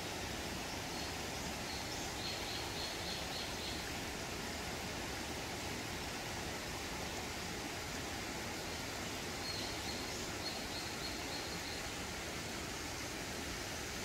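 Steady rush of a shallow stream running over rocks. Twice a small songbird sings a short run of rapid, high repeated notes, about two seconds in and again about ten seconds in.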